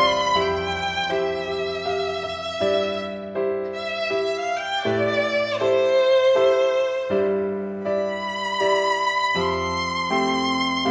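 Background music: a violin playing a slow melody over changing chords.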